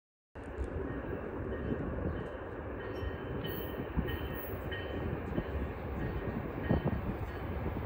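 Amtrak train led by GE P42DC diesel locomotives approaching in the distance: a steady rumble with rail noise, starting abruptly a moment in after silence.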